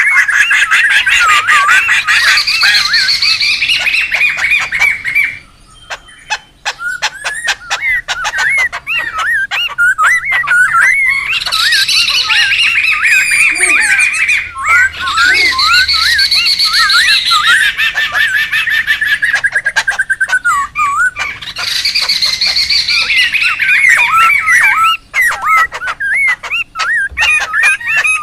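Laughingthrushes (poksay) calling in a noisy chorus: loud, chattering, rising-and-falling whistled notes in bursts a few seconds long, broken by rapid rattling chatter.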